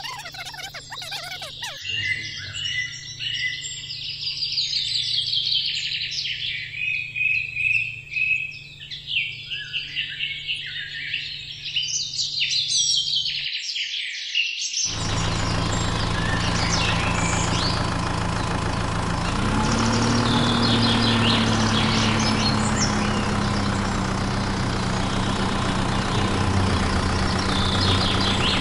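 Birds chirping and tweeting for about the first thirteen seconds. After a brief drop-out, a steady engine idling sound comes in, rising slightly in pitch about nineteen seconds in, with faint bird chirps still over it.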